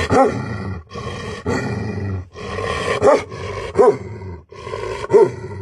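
A Rottweiler growling in long rough stretches, broken by four short barks.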